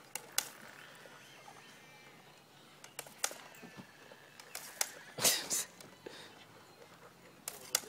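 A dog snapping and lapping at the stream from a pump water gun, heard as scattered short wet clicks and snaps. The loudest is a brief splashy burst about five seconds in.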